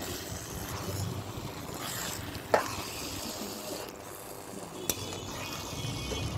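Thick plum pickle sizzling in oil in a hot pan while a steel spatula stirs it, with a sharp clink of the spatula on the pan about two and a half seconds in and a fainter one near five seconds.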